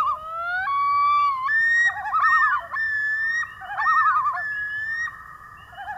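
Common loons calling: fast, wavering tremolo calls near the start and again near the end, with long wailing notes that jump suddenly in pitch in between, several calls overlapping.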